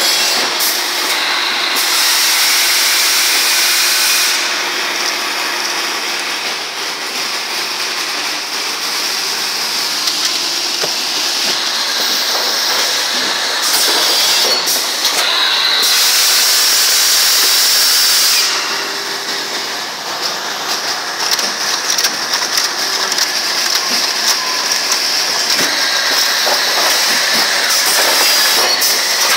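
Plastic thermoforming machine running, with loud air hissing that comes and goes in long stretches of several seconds, and scattered knocks.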